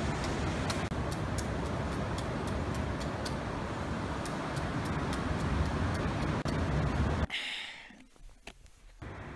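A machete knocking sharply into a green coconut, about three chops a second, over a loud steady low rumbling noise. After about seven seconds there is a short hiss, then it drops to near quiet.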